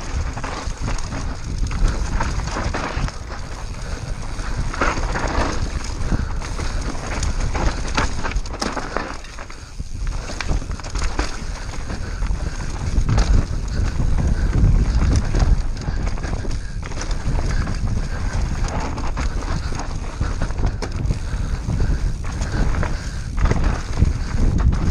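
Mountain bike running fast down a dirt singletrack, heard from a camera on the bike or rider: tyres rolling over dirt and roots, with the bike rattling and clattering over the bumps and wind rumbling on the microphone. It eases off briefly about ten seconds in.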